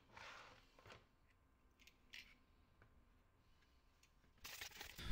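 Near silence with a few faint handling sounds of a keyboard circuit board and plastic case parts: a soft rustle just after the start, a couple of small clicks, and faint rustling near the end.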